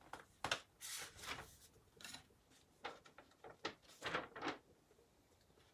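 Handling noise: scattered rustles and light clicks of parts or paper being handled, several in the first half and a cluster about four seconds in, then quieter.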